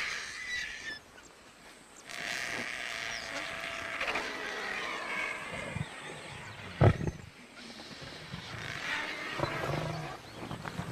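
Lions growling, loudest in one short, low growl about seven seconds in.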